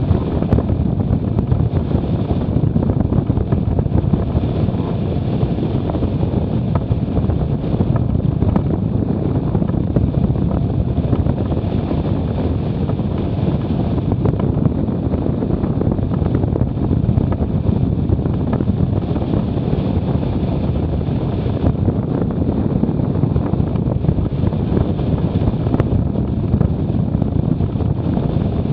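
Strong wind blowing across the microphone: a steady, loud rumbling noise that keeps on without a break.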